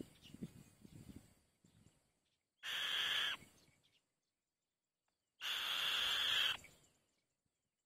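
White-tailed kite giving two harsh, raspy screeching calls a couple of seconds apart, the second a little longer, after a faint low rustle at the start.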